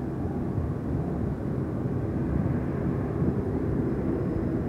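Piston engines of an Avro Lancaster bomber and its escorting Hurricane and Spitfire, a steady low drone as the formation flies over.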